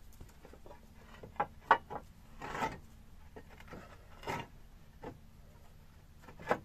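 Clay roof tiles knocking and scraping as they are shifted by hand from beneath. Short sharp clicks and clacks come in a cluster between about one and two seconds in, with separate rougher scrapes around two and a half and four seconds, and another knock near the end.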